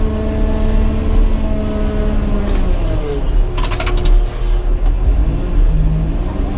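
Caterpillar 120K motor grader's diesel engine running under way, heard from inside the cab as a heavy steady rumble whose pitch shifts briefly about halfway through. A quick rattle of clicks comes just after the middle.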